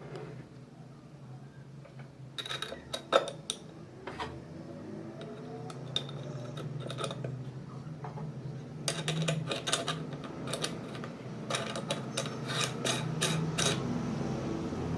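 Metal parts of a meat grinder clinking and tapping in short clusters, over a steady low hum.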